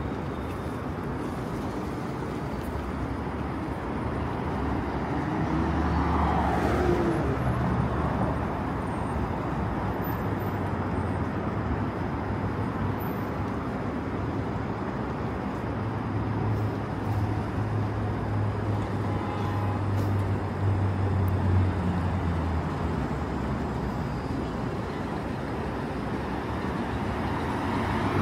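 Street traffic noise with vehicles passing. A low engine hum swells about six seconds in, and again from about sixteen to twenty-two seconds.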